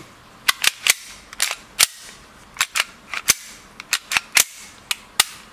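Sharp clicks of a WE G17 gas blowback airsoft pistol's action being worked by hand, as the slide is cycled and the trigger pulled. There are about a dozen snaps, mostly in quick groups of two or three.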